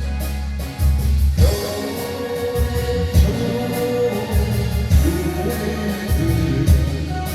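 Korean trot song playing: a singer's voice enters about a second and a half in over a band with a steady bass beat.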